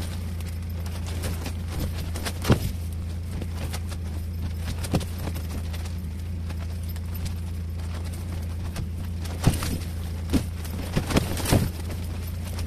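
Steady low hum inside an ice-fishing tent, with a few sharp knocks scattered through and several close together near the end.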